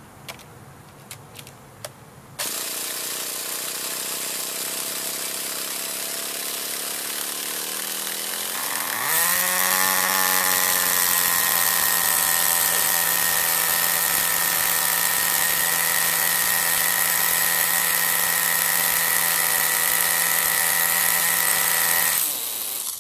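A Forza nitro RC buggy's small glow-fuel engine, first start after about a year in storage: after a few clicks it is spun by the electric starter for several seconds, catches about nine seconds in with a quick rise in pitch, and runs loud and steady at a high pitch until it cuts off shortly before the end. The idle still needs adjusting.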